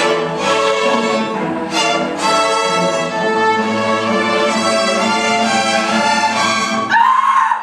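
String orchestra of violins, violas and cellos playing sustained, full chords. Near the end comes a loud upward slide, and then the sound drops away.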